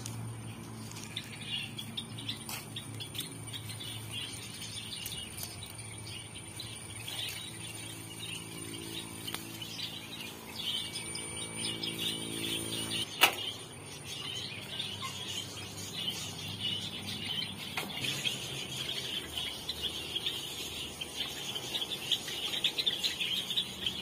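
Dense, continuous chirping of a flock of small cage birds, Java sparrows and budgerigars, in an aviary. A single sharp click sounds about halfway through.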